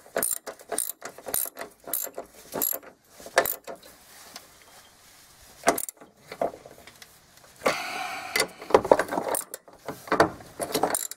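Hand socket ratchet clicking in short uneven bursts as nuts are tightened on steel brackets, with a longer rasp about eight seconds in and a quicker run of clicks near the end.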